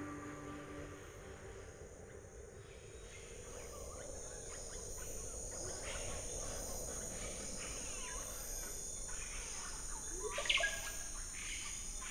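Amazon rainforest ambience: a steady high insect drone with scattered bird calls over it. One loud rising call stands out about ten and a half seconds in.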